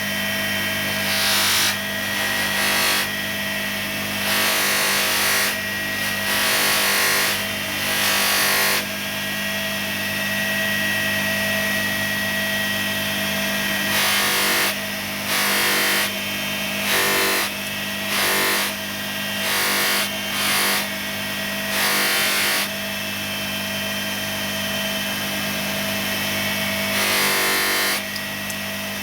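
Bench grinder fitted with a polishing mop running steadily with a motor hum, while a metal workpiece is pressed against the spinning mop again and again, each contact giving a short rushing, scrubbing burst; the bursts come in quick runs of about one a second, with a longer stretch of plain running in the middle.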